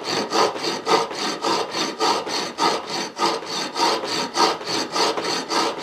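A sharp steel rasp filing a flat on a soft cast-aluminium lump clamped in a vise, in quick, even back-and-forth scraping strokes.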